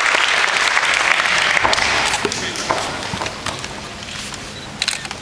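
Crowd applauding, loudest at first and dying away over a few seconds, with a couple of sharp smacks near the end.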